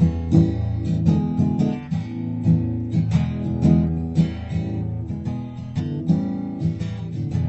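Background music: acoustic guitar strummed and picked.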